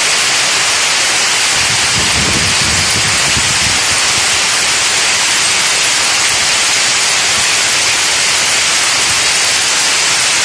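Rows of spool-carrier braiding machines running together for shoelace cord, a loud, steady mechanical noise with no let-up.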